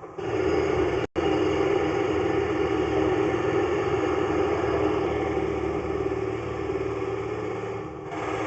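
A motor or engine running steadily with a low hum, starting abruptly just after the start and cut off for an instant about a second in.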